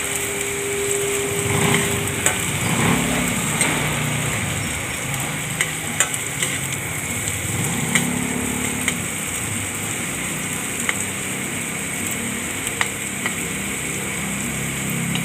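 Hot dog strips, vegetables and egg sizzling steadily in a frying pan, with several sharp clicks of a metal spatula tapping and scraping the pan as the strips are turned.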